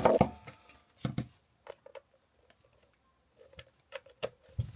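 Scattered light clicks and taps of small plastic parts and packaging being handled, with a sharper click at the very start and a short quiet gap in the middle.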